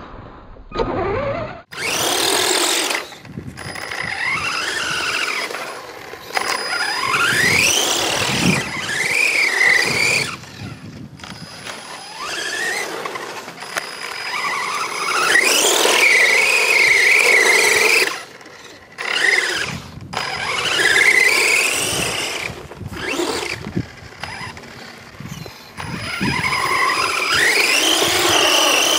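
Brushless electric motor of an RC car whining as it speeds up, the pitch climbing steeply on each run and holding high before dropping away. Several runs in a row, with brief lulls between them.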